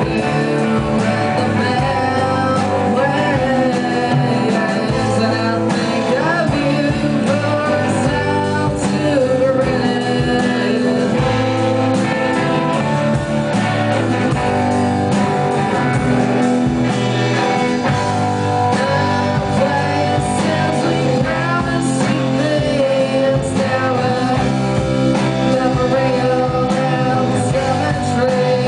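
Live rock band playing a song: a singer's vocal over electric guitar, bass and drums, with a steady beat.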